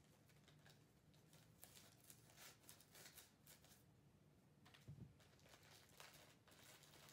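Faint crinkling and rustling of wrapping paper being handled, in short irregular bursts, with a soft low thump about five seconds in.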